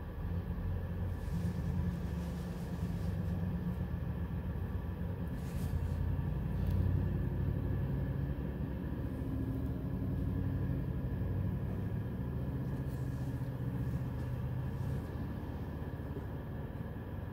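Sonny's tunnel car wash equipment running, heard muffled from inside a car's closed cabin as a steady low rumble with a few faint knocks.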